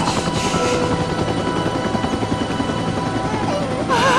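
Helicopter cabin noise: a steady, even drone of the engine and rotor. Near the end a woman lets out a wavering, wailing sob.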